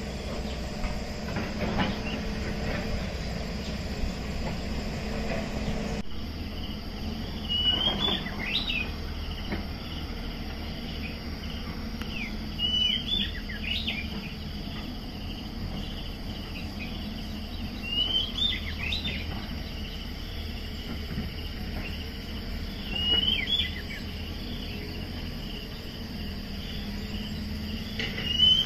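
Steady insect chorus with a bird repeating a short call about every five seconds, each a sharp rising note that trails off. Under it a low steady engine hum from the distant excavator, strongest in the first several seconds.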